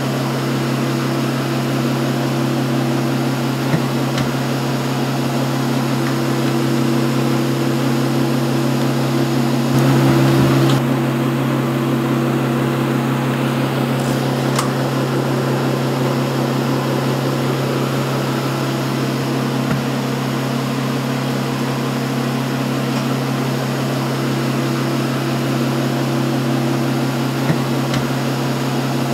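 Steady machine hum, a low drone made of several fixed tones, swelling briefly about ten seconds in, with a few faint ticks scattered through it.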